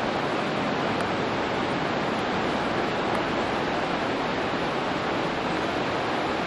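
River rapids rushing over rock ledges: a steady, unbroken wash of whitewater.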